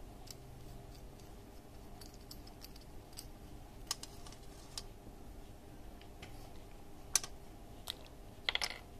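Small, sparse clicks and taps of the metal tip parts of a butane soldering iron being unscrewed and handled over a metal tin tray, with a sharper click about seven seconds in and a brief clatter near the end as a part meets the tin.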